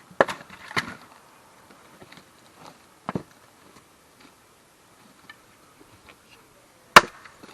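Hand splitting of firewood: a few wooden knocks and clatters as pieces are handled, then one sharp, loud axe strike into a wood block near the end.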